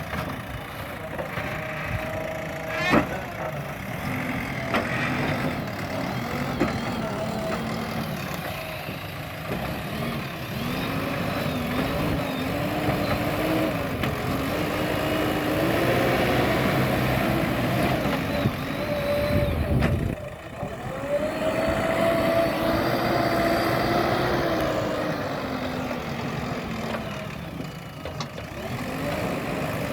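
JCB backhoe loader's diesel engine running under work, its pitch rising and falling again and again as it revs under hydraulic load. A sharp knock about three seconds in.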